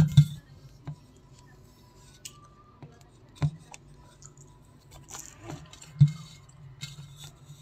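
Scattered light clicks and dull knocks, the sharpest at the start, about three and a half seconds in and about six seconds in, with brief rustling between them.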